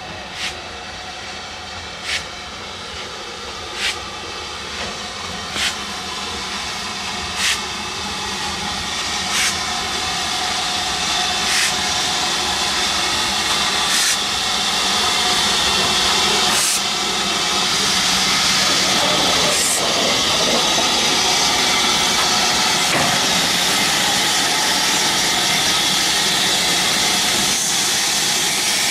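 Southern Railway U-class 2-6-0 steam locomotive drawing a freight train in and slowing: sharp beats about every two seconds that space out as it slows. From about two-thirds of the way through it is close by and a loud steady steam hiss takes over.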